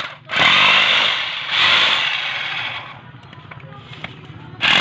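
Corded electric concrete hammer pounding its bit into concrete, run in bursts. It cuts out briefly at the start and near a second and a half in, then stops for over a second about three seconds in before starting again at the end.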